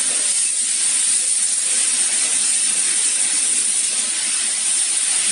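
Steady hiss that does not change, strongest in the high range, with no clicks or other events.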